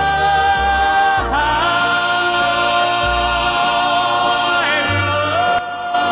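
Male gospel vocal group singing long held notes in close harmony over instrumental backing. The chord moves about a second in and again near five seconds, with a bass line stepping underneath.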